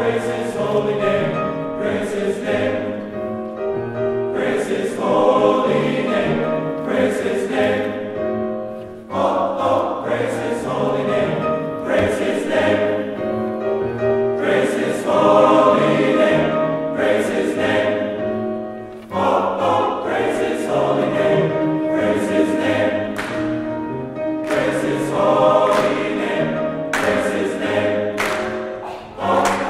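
Men's choir singing a hymn in full harmony with piano accompaniment, in long phrases with short breaks between them. Near the end the singers clap along.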